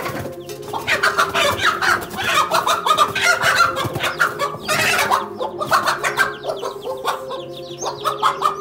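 Hen giving rapid, harsh squawks and clucks in a long agitated run: defensive alarm calls as she attacks a cobra threatening her chicks.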